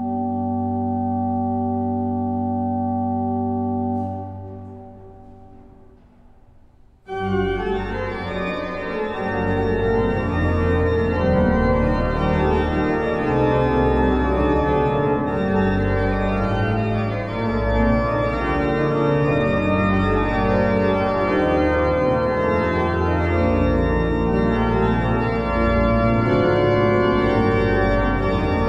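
The 1809 Meere pipe organ, a two-manual mechanical-action slider-chest organ, plays. A held chord is released about four seconds in and dies away in the church's reverberation. About seven seconds in, a louder, fuller passage of many sustained notes begins and keeps going.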